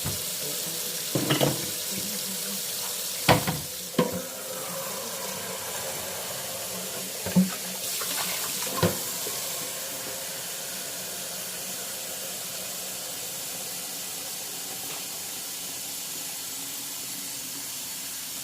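Kitchen tap running steadily, filling a container with water, with a few knocks of cookware in the sink during the first nine seconds.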